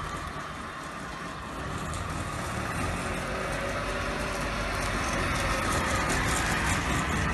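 Trabant 601's air-cooled two-stroke twin engine running as the car drives slowly up close, getting louder about two seconds in.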